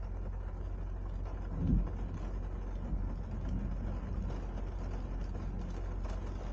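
Rainstorm with a steady low rumble and a faint hiss of rain over it, and one short low thump a little under two seconds in.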